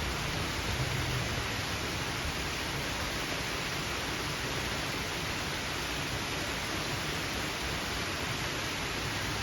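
Rain falling steadily, an even hiss with no change.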